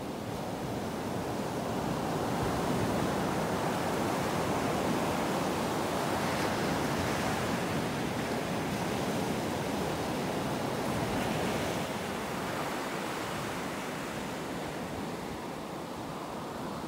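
Ocean surf breaking and washing up a sand beach: a steady rush of white water that swells over the first few seconds and eases off in the second half.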